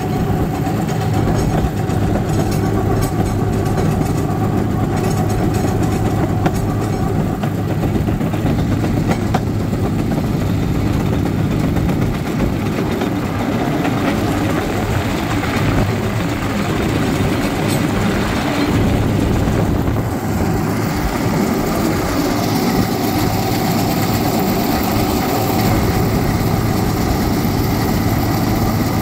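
Small gasoline engine of a motorized railcart running steadily under way, with its steel wheels rumbling and clicking on the rails.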